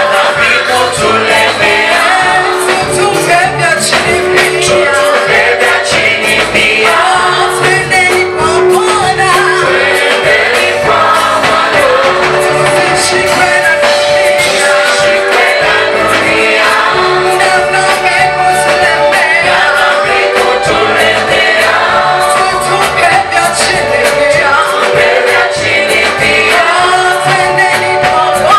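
A choir singing a gospel song in Swahili over steady instrumental backing with a regular bass beat.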